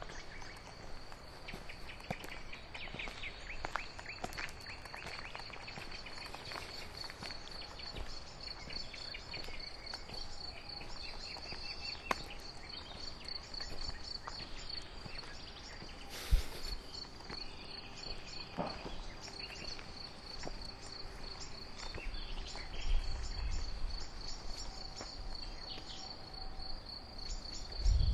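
Crickets singing: a steady, pulsing high trill at one pitch, with scattered bird song over it. There is one sharp knock about sixteen seconds in, and low rumbling towards the end.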